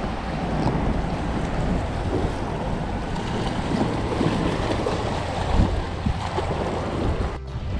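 Wind buffeting the microphone with a steady low rumble, over small waves washing against a rocky shoreline. The sound drops out briefly near the end.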